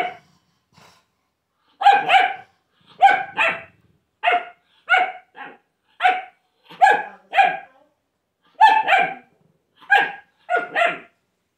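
Small dog barking in short, sharp barks, mostly two in quick succession, with brief pauses between.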